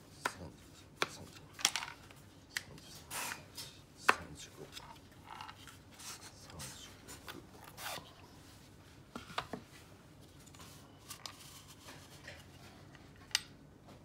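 Wooden panels of a Japanese yosegi-marquetry puzzle box being slid and worked open by hand: scattered sharp wooden clicks and knocks with short scraping slides between them, the loudest knock about four seconds in.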